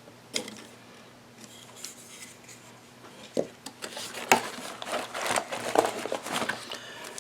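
Hands handling small camera accessories and their plastic packaging: scattered clicks and light rustling and clatter, busier from about three seconds in.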